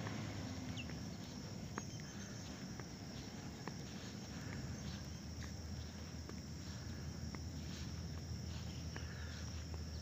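Steady high drone of insects, crickets by the sound of it, over a low steady rumble, with a few faint sharp ticks scattered through.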